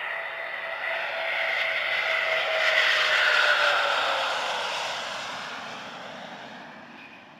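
Eurofighter Typhoon's twin EJ200 turbofans on landing approach, passing low: a jet rush and whine that swells to its loudest about three seconds in. The whine drops in pitch as the jet goes by, and the sound then fades away.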